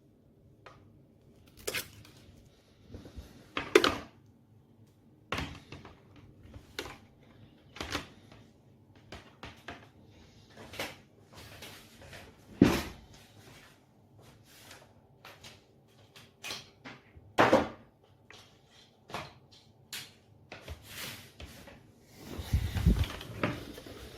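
Handling noises: irregular clicks and knocks of hard objects being picked up, set down and fitted, a dozen or more spread unevenly, with a longer scraping rustle near the end.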